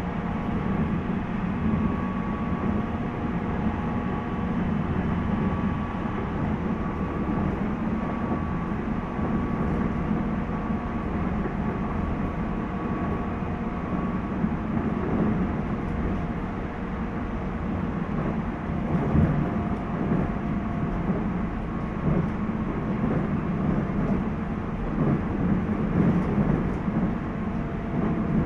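Running noise inside a 719 series electric multiple unit's motor car on the move: a steady low rumble of wheels on rail with a faint whine in the first half, and a few knocks later on as the wheels pass over rail joints.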